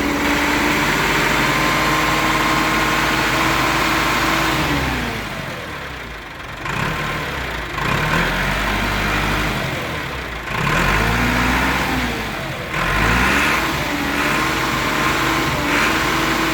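Tractor diesel engine being revved. It is held at high speed for several seconds, let back down toward idle, then revved up again a few more times, the pitch climbing and falling with each throttle change.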